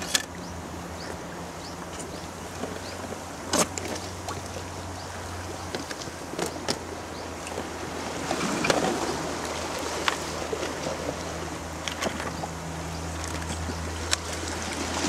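Sea washing against a rocky shore over a steady low hum, with a few sharp clicks from a clear plastic tackle box being handled and opened.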